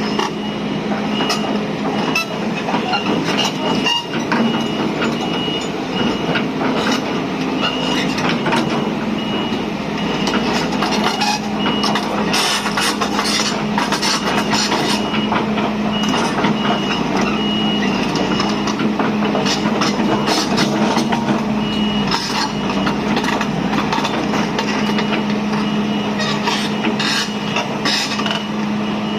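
Volvo excavator's diesel engine running under load with its travel alarm beeping in a steady series, which stops for a few seconds midway and then resumes. Scattered metallic knocks and clanks from the working machine run through it.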